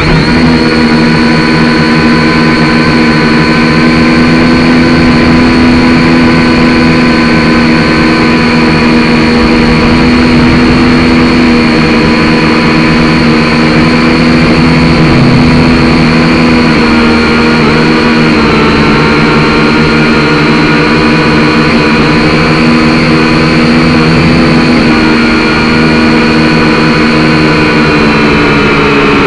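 Syma X5C quadcopter's four small brushed motors and propellers whining steadily in flight, very loud and close as heard from the drone's own onboard camera. The pitch dips slightly a couple of times and starts to fall near the end.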